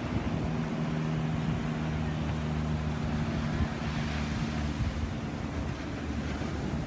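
Steady engine drone of low-flying light aircraft overhead, over surf and wind on the microphone. The drone drops away about five and a half seconds in.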